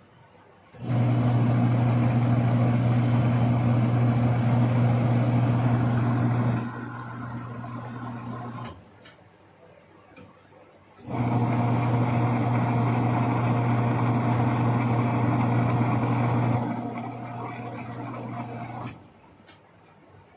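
Twin-tub washing machine's electric motor running with a strong low hum in two runs of about six seconds each. Each run drops to a quieter coast for about two seconds and then stops for about two seconds before the next one starts.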